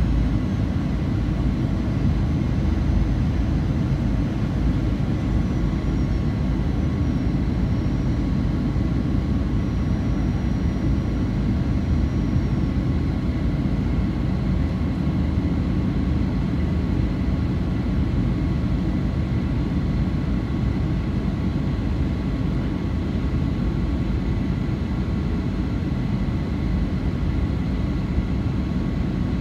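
Steady cabin noise inside a Boeing 737-900: an even low rumble with a few faint, steady whining tones above it.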